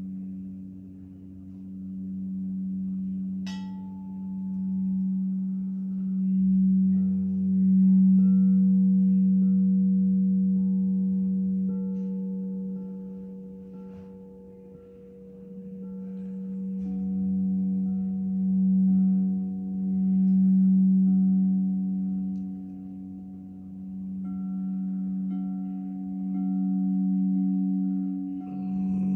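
Frosted quartz crystal singing bowls ringing with a low sustained tone that swells and fades in slow waves. A higher bowl tone is struck about three seconds in, and another higher tone joins a little past the middle.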